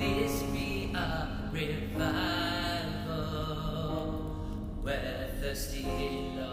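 Worship music with long held notes that change every second or so.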